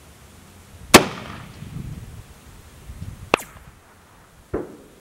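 A single shot from a Mosin-Nagant bolt-action rifle in 7.62×54R about a second in: a loud, sharp crack followed by a low rolling echo lasting about a second. Two further sharp reports follow, a high crack about two and a half seconds after the shot and a duller, fainter one about a second after that.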